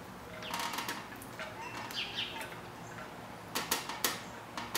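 Hand screwdriver driving a wood screw into the plastic motor housing to clamp down a bridge rectifier and its aluminium heat sink: short squeaks of the screw turning in the plastic, with scattered clicks and two sharper clicks a little past the middle.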